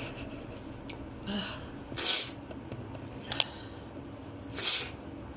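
A person sniffing sharply through the nose twice, about two and a half seconds apart, just after a sneeze, with a couple of small clicks between the sniffs.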